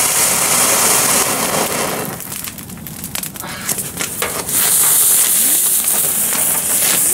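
Firework fountain (a Zauberbox) hissing as it sprays sparks, with crackling pops. The hiss eases about two seconds in, leaving mostly crackle, then surges back about four and a half seconds in.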